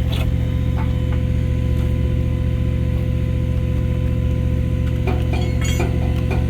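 Steady low machine hum as a hydraulic C-clamp keeps closing on a steel pipe coupling, with a few light metallic clinks about five seconds in.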